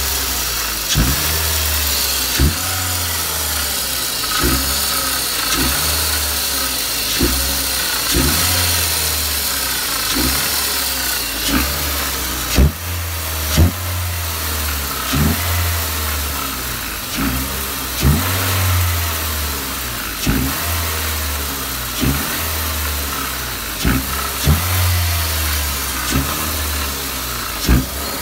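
2003 Mini Cooper's 1.6-litre four-cylinder engine running in first gear with the wheels spinning free, its pitch swinging up and down over and over, with a sharp clunk about once a second as the engine shakes.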